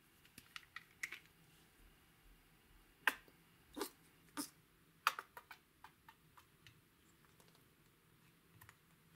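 Plastic squeeze tube of lip balm being handled and squeezed out: a few light clicks, then four louder pops a little over half a second apart as the balm and air spurt from the nozzle, trailing off into small ticks.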